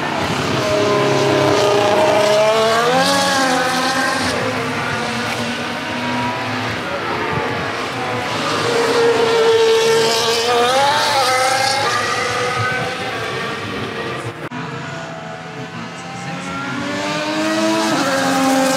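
Formula 1 cars' 1.6-litre V6 turbo-hybrid engines passing one after another on a wet track. The engine note rises and falls with gear changes and speed, and grows louder again near the end as the next car comes through.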